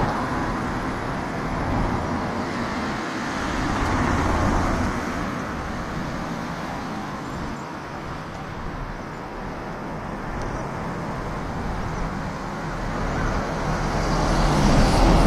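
Road traffic noise: a steady rush of vehicles, swelling louder and fading a few times as cars pass.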